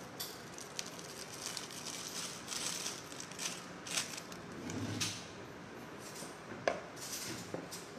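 Scattered soft rustles and crisp clicks of a plastic piping bag being handled and squeezed while piping whipped cream onto a cake, with one sharper click about two-thirds of the way through.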